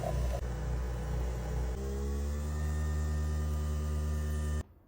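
Coffee machine running with a loud low hum that pulses at first, then settles about two seconds in into a steady hum rising slightly in pitch, and cuts off abruptly near the end.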